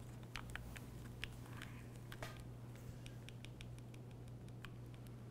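Faint handling noise from a small foam-covered camera microphone held in the hands: scattered clicks and light scratches, with a quick run of small evenly spaced clicks about halfway through, over a steady low hum.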